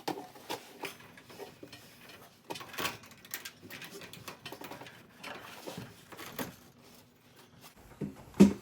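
Scattered light metallic clicks and clinks as a garage door's steel lift cable is worked back into the groove of its cable drum. There is a sharper knock near the end.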